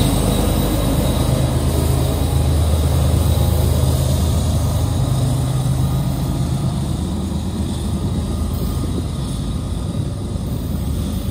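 Union Pacific diesel-electric locomotive's engine running as it passes close by and pulls away, a steady low drone that gradually fades over the last few seconds.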